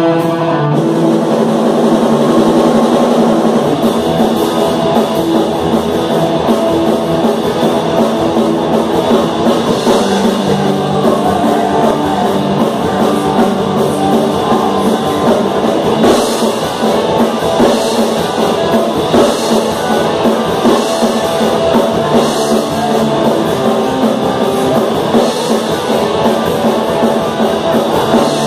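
Live rock band playing loudly: two distorted electric guitars, bass guitar and a full drum kit with cymbals.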